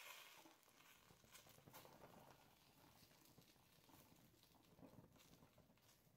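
Faint crackling and spattering of molten copper splashing onto a wooden flask and sand, setting the wood burning. It starts suddenly, then becomes a run of irregular small pops and crackles.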